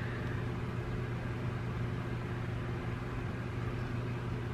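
Steady low hum with a faint even hiss: unchanging background noise in the room.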